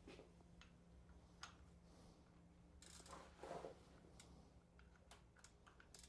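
Near silence with a few faint, scattered clicks and a soft rustle about three seconds in.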